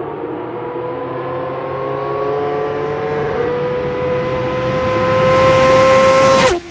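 Kawasaki ZX-10R sport bike's inline-four engine at high revs, approaching at speed. It grows louder with its pitch slowly rising, then drops sharply in pitch near the end as it passes.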